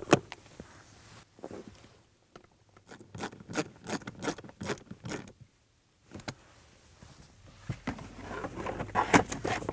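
Plastic parts being handled under a car's dashboard: irregular clicks, taps and scrapes as a cabin air filter is pushed into its housing and the plastic access cover is fitted back over it, the handling growing busier and louder near the end.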